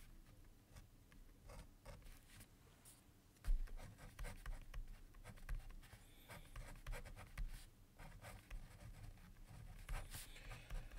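Pen writing on paper, a word being handwritten in short, faint scratching strokes, with soft low thumps from about three and a half seconds in.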